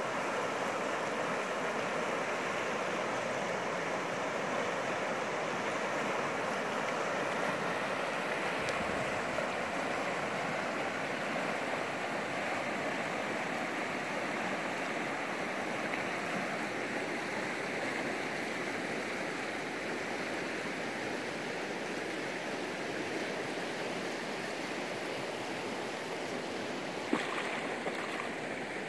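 Shallow river water running steadily over rocky riffles, an even rushing that does not change. A single brief click sounds near the end.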